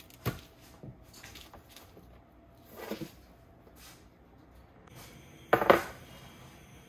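Spaghetti squash halves being set cut-side down on a parchment-lined sheet pan: a sharp knock just after the start, softer rustling of the parchment, and a louder, short burst of handling noise near the end.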